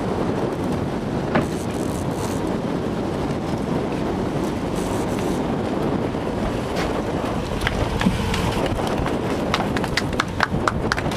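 Steady wind rushing over the microphone on an open boat. Near the end comes a quick run of sharp knocks and slaps as a gaffed barracuda is hauled aboard and hits the deck.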